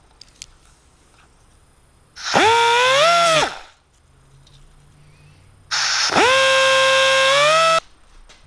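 Power tool spinning a rod wound with abrasive flap paper inside a machined bore, polishing out about half a thousandth. It runs twice for a second or two each time, its whine rising in pitch as it spins up and dropping as it stops.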